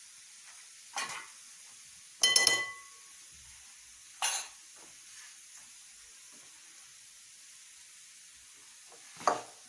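Kitchen utensils clinking against dishes: four separate knocks, the loudest a little over two seconds in, which rings briefly.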